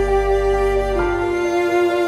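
Slow, sad background music of sustained, held chords, changing to a new chord about a second in.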